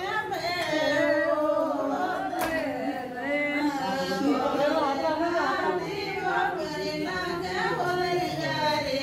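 A group of women singing a traditional Rajasthani folk song together, several voices overlapping.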